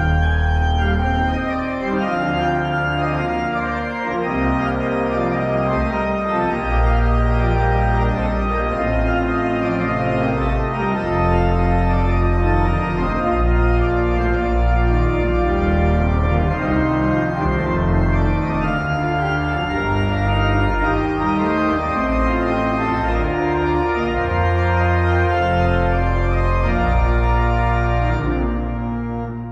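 Church organ played on a three-manual console: full sustained chords over deep bass notes, moving steadily from chord to chord.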